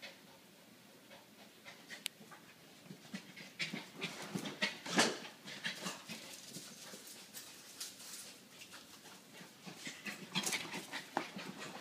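Puppy panting in quick, short breaths while scuffling about on a dog bed, with one louder burst about five seconds in.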